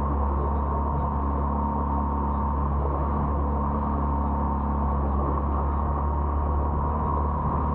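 Boat engine running at a steady speed: an even, unchanging drone with a thin high tone held on one note above it.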